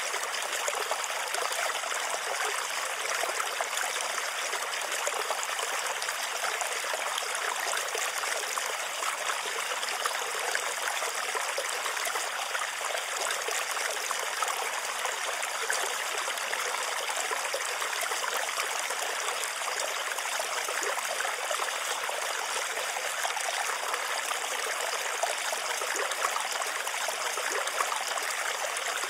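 Steady rain: a dense, even hiss of falling drops.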